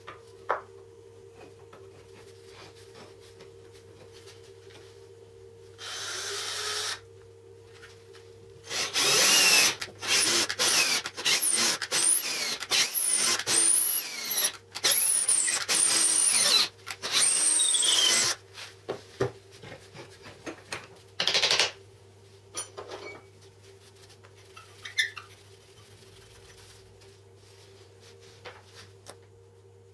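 Cordless drill boring into the end of a wooden dowel clamped in a wooden vise. A short spin about six seconds in, then about nine seconds of drilling in stop-start bursts with a high whine that slides in pitch, and one more short burst a few seconds later, followed by a few light clicks.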